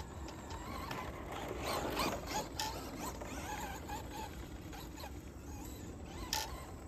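Box-stock Traxxas Mudboss electric RC dirt-oval car running laps on loose dirt, with a whirring, gear-like drivetrain sound that rises for a moment about two seconds in. A few sharp clicks come through it.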